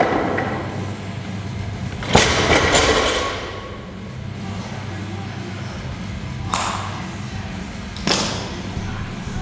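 Deadlift barbell loaded to 260 kg with bumper plates set down on the gym floor. There is a thud right at the start, then a louder thud with a rattle of plates about two seconds in, and two lighter knocks later. Steady background music plays throughout.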